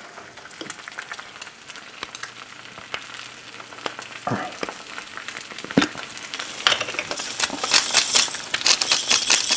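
Eggs frying in hot bacon grease in a pan, crackling and spitting, with a couple of knocks about halfway through. The sizzle grows much louder over the last few seconds.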